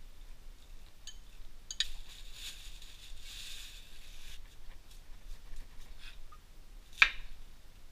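Kitchen food-prep handling sounds: a few light clicks, a stretch of soft scraping or rustling, then one sharp knock about seven seconds in.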